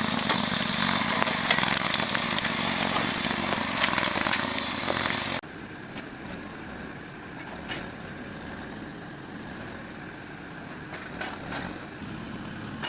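A loud, steady engine runs, then cuts off abruptly about five seconds in. After that a quieter engine runs steadily, with a few light knocks.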